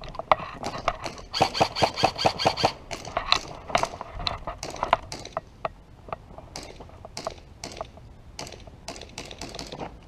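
Airsoft rifle fire: sharp clicking shots, with a rapid burst of about ten shots a second between about one and a half and two and a half seconds in, then scattered single shots and short strings.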